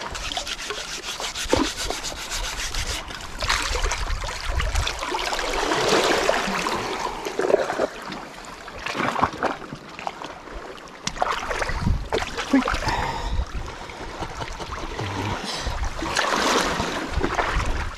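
Wooden chopping board being scrubbed clean in shallow seawater: irregular rubbing strokes of wood with swishing water.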